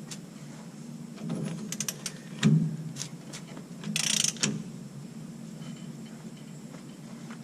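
Hand ratchet clicking in short bursts, with a few metal knocks, as the pinion nut on a rear differential is tightened after a seal replacement.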